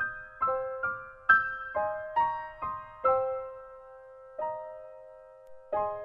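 Background music: a slow piano melody of single struck notes that ring and fade, with one longer held note a little past halfway.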